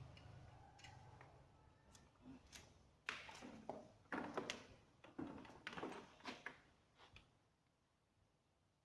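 Scattered sharp clicks and clunks of tools and refrigeration fittings being handled while the refrigerant hoses are readied for charging, about a dozen in the middle seconds. A low hum dies away at the very start.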